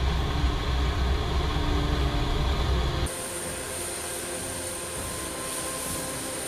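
Loud low rumble of machinery in a C-17 cargo bay during Humvee loading, which changes abruptly about three seconds in to a quieter steady hum with a thin high-pitched whine as a Humvee drives down the cargo ramp on the flight line.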